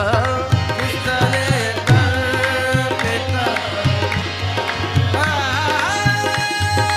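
Qawwali music: tabla playing a steady beat under a held melody that bends in pitch, with long held notes near the end.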